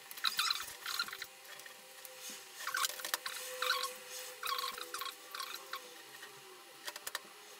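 Soldering iron and solder working a cable joint on a battery terminal: short scratchy, hissing bursts in several clusters, with a few small clicks.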